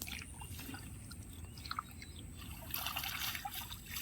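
Stream water trickling and sloshing, with a stretch of louder splashing near the end.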